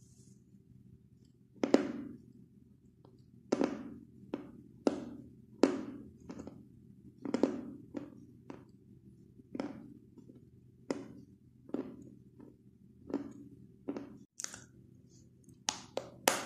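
White chalk crunching as it is chewed: a loud first crunch about two seconds in, then a steady run of separate crunches, roughly one to two a second. Near the end, three sharp crunches come in quick succession as a new chalk stick is bitten.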